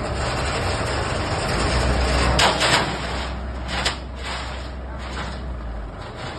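Excavator working with a steady low engine hum and a loud hissing noise, then sharp metallic clanks about two and a half seconds in, again shortly after and once more near four seconds, after which the running settles quieter.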